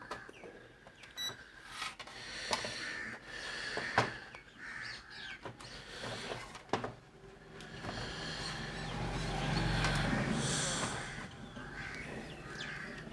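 Scattered clicks and knocks of a multimeter and its probes being handled and set up, with a louder rustle of handling about eight to eleven seconds in.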